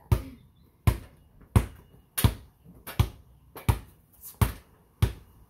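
A basketball dribbled on a concrete driveway: a steady run of sharp bounces, about one every 0.7 seconds, eight in all.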